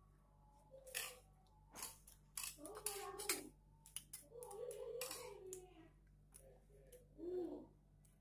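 Quiet close-up eating sounds: sharp clicks and crunches of chewing. A faint murmuring girl's voice comes in about three times.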